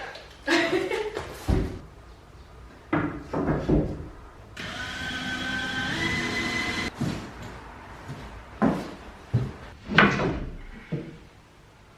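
Wooden knocks and bumps of boards and door-frame trim being handled and fitted, several sharp strikes spread through. A steady whirring hum runs for about two and a half seconds in the middle.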